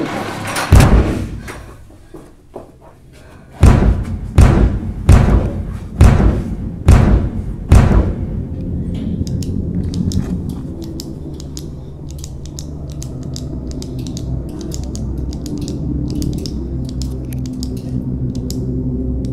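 A door slams shut, then six heavy thumps like pounding on a door, a little under a second apart. A low, steady drone with faint high clicks follows: tense film score.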